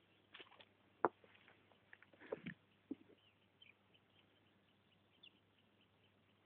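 Faint short high chirps of small birds scattered through, with a handful of sharp knocks and clicks in the first half, the loudest about a second in and a cluster around two and a half seconds.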